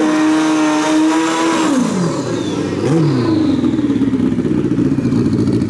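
Pro Street drag motorcycle engines held at high, steady revs during a smoky burnout. About two seconds in the revs drop sharply, there is a quick blip of the throttle about a second later, and the engine settles into a choppy, pulsing low running.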